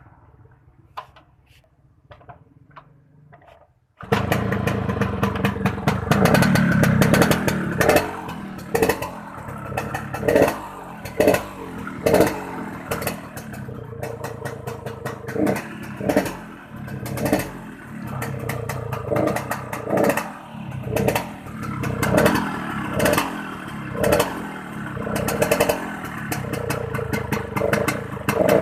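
Yamaha RX-King's two-stroke single-cylinder engine running with a rough, snoring sound ('ngorok'), the throttle blipped over and over so the revs rise and fall about once a second. Before it, a few faint clicks; the engine sound comes in abruptly about four seconds in.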